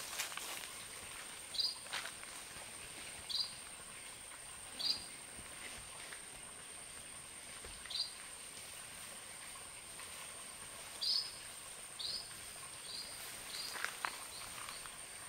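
Outdoor ambience with a bird giving short, high, quickly falling chirps every second or two, coming faster near the end, over a steady high-pitched hum and a few faint knocks.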